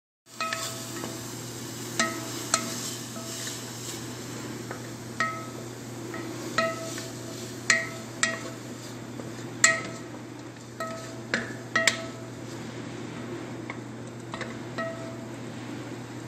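A wooden spoon stirring chopped onions, tomatoes and green peppers in a metal pot, knocking against the pot about a dozen times at uneven intervals; each knock rings briefly. A steady low hum runs underneath.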